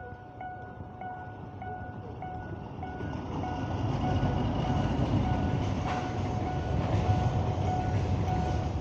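Level-crossing warning bell dinging in a steady repeating beat while a freight train's low rumble grows louder from about three seconds in as it reaches the crossing.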